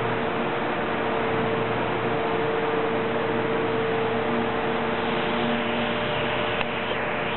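Steady factory background noise: an even hiss with a low steady hum beneath it, and one faint click near the end.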